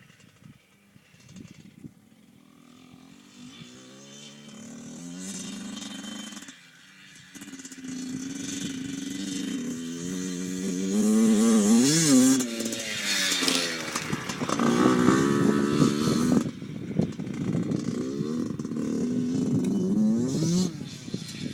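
Two-stroke dirt bike engine revving hard, starting faint and growing loud as it comes near. The pitch climbs and drops again and again as the throttle is worked, with a brief cut about six seconds in.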